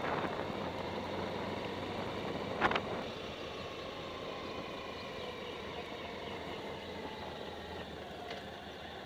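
A bike in motion, heard from a camera mounted on it: steady running and road noise with a faint whine that slowly drops in pitch as it slows. A single sharp click comes near the middle.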